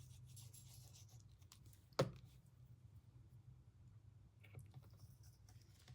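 Faint handling of papercraft materials at a worktable, small ticks and rustles, with one sharp click about two seconds in, over a low steady hum.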